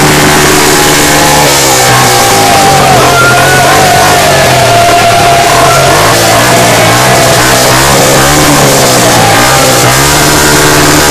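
Motocross bike engines revved hard and held at high revs, very loud and distorted. The pitch wavers and shifts through the middle and steadies again near the end.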